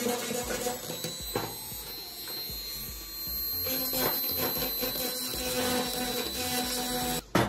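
Electric die grinder running with its bit grinding against the cast-metal foot of an old bicycle pump, a steady high whine over rough grinding noise. It cuts off sharply near the end.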